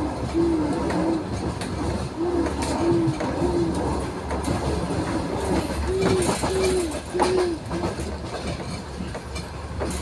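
Moving train heard from inside the carriage: a steady rumble of wheels on rail with some clicks over rail joints. Over it a string of short rising-and-falling tones repeats about twice a second, loudest a little past the middle.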